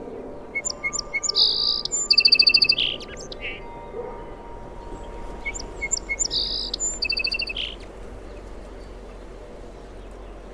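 A sparrow singing two similar song phrases a few seconds apart, each opening with a few short separate notes and running into a buzzy stretch and a fast trill.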